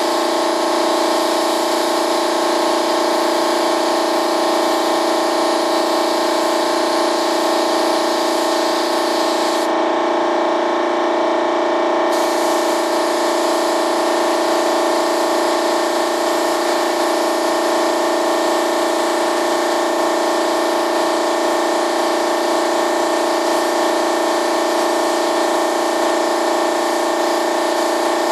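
Paint spray gun hissing steadily as it sprays, over the steady hum of a motor-driven air supply. The spray hiss stops for about two seconds near the middle, then starts again, while the motor hum runs on.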